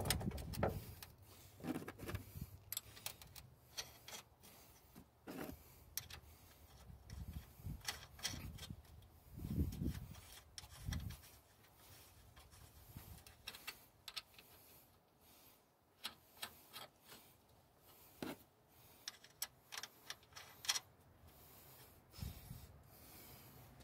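Faint, scattered metallic clicks and scrapes as flange nuts are started by hand onto the threaded studs of a new front strut's top mount in the strut tower, with a few low thumps a little under halfway through.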